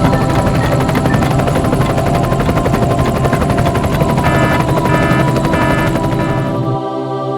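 Loud, fast steady mechanical rattle, with four short beeps about half a second apart in its later part, cutting off abruptly near the end.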